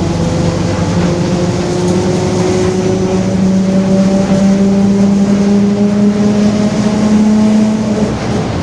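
A Mercedes-Benz OF-1721 bus's rear differential whining very loudly while the bus is under way, a steady whine that climbs slowly in pitch as the bus gathers speed, over the engine and road noise.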